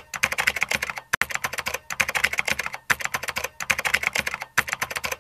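Typing sound effect: rapid keystroke clicks in runs of about a second or so, broken by short pauses, keeping time with text typing itself out on screen.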